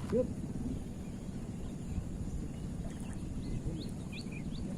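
Outdoor ambience: a steady low rushing noise, with a bird giving a quick series of short, high, rising chirps in the second half.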